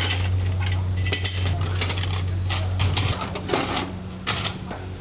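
Metal spatula scraping and clattering against a wok in quick irregular strokes while noodles are stir-fried, over a steady low hum that drops away about three seconds in.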